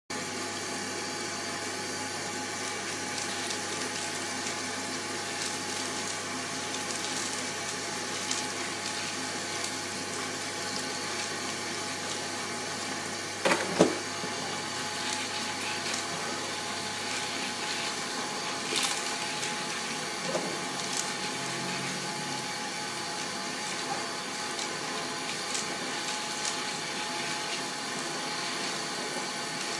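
Tap water running steadily into a steel pot of green coffee beans in a stainless steel sink while hands stir and rub the beans. Two sharp knocks come about halfway through, with a smaller one a few seconds later.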